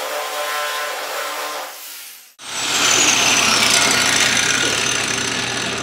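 Angle grinder with a stainless steel shrinking disc spinning against a bare steel body panel, heating the high spot, then stopping about two seconds in. After a short break comes a loud hiss with a whistle falling in pitch: a wet quench rag pressed on the hot metal, steam sizzling off as the spot is quenched to shrink the metal.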